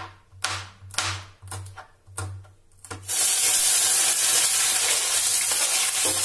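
A few knife strokes on a plastic cutting board. About three seconds in, chopped onion, green chilli and garlic hit hot oil in a kadai with a sudden loud sizzle that keeps going: the tempering of cumin, mustard seed and onion beginning to fry.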